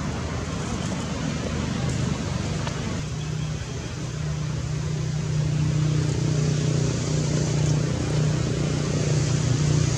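A steady, low engine hum that grows stronger about five seconds in.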